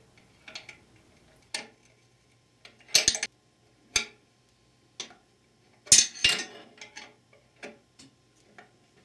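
A 13/16-inch steel wrench clinks on the manual valve lever nut and against the aluminium transmission case as the nut is tightened in short strokes. It makes separate metallic clicks roughly once a second, with louder double clacks about three and six seconds in.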